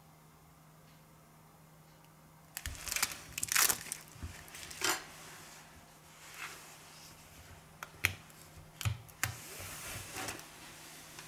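Hands handling things at the bench: a run of short crinkling, scraping and rustling noises with a few sharp clicks, starting about two and a half seconds in, over a faint steady hum.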